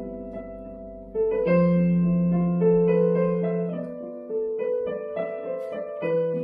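Digital piano played with both hands: slow, sustained chords under a melody, with a louder chord coming in about a second in.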